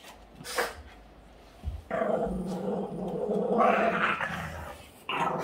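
Boston terrier play-growling: one long, continuous growl that starts about two seconds in and lasts about three seconds, after a short sound under a second in.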